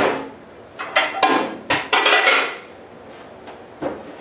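Dishes clattering and knocking together in a lower kitchen cabinet as a glass baking dish is pulled out. There is a quick run of clatters over the first two and a half seconds, then it goes quieter, with one small knock near the end.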